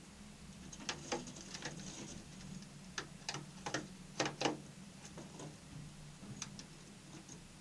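Small birds pecking, giving irregular sharp taps, most of them between about one and four and a half seconds in, with faint high chirps. A steady low hum runs underneath.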